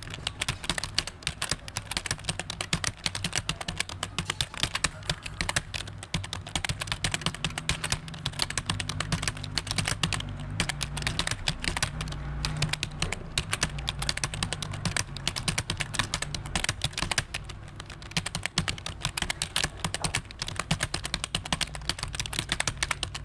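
Rapid, continuous typing on a computer keyboard, keys clicking in quick irregular runs, over a low steady hum.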